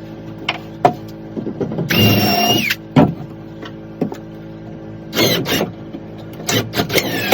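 Background music, broken by short bursts of a small power tool whining, the first dropping in pitch as it stops, and several sharp knocks in between.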